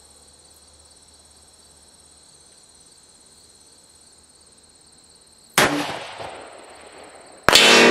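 A single 5.56 rifle shot from a Rock River Arms AR-15 with a 16-inch 1-in-9 twist barrel, its crack fading over about a second, then about two seconds later the bullet hits a steel target plate with a loud clang that keeps ringing. Insects chirr steadily underneath.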